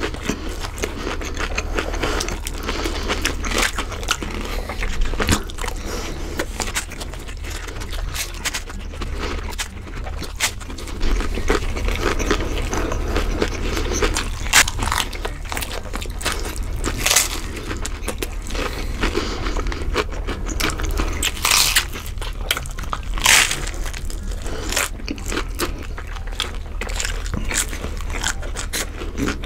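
Close-miked eating of crunchy hard-shell corn tacos: biting and chewing with repeated sharp crunches and crackles of the fried shell, a few louder crunches in the second half, over a steady low hum.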